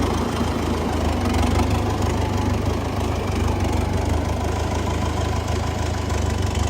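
Diesel tractor engine running steadily at an even, low speed.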